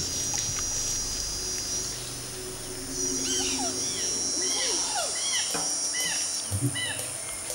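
Tropical forest ambience: a steady high-pitched insect drone that fades and returns. It is joined in the middle by a run of short, quick rising-and-falling chirping calls.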